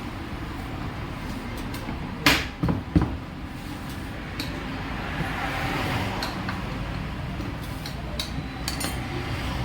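Three sharp knocks close together about two seconds in, then lighter scattered clicks and clinks: tools or metal parts being handled and struck during workshop work.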